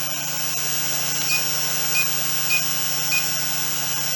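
Drone motors running with a steady whir, while the radio transmitter gives short high beeps about every half second from a little over a second in, as the trim is stepped back toward centre.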